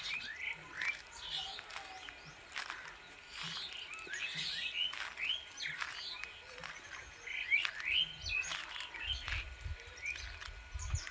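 Several birds chirping and calling in short, rapid notes, many of them quick sweeps up or down in pitch, with a few sharp clicks scattered among them and a low rumble near the end.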